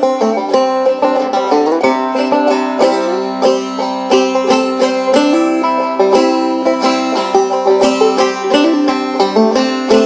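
Instrumental banjo-led string-band music, a picked banjo playing a busy run of short plucked notes with no singing.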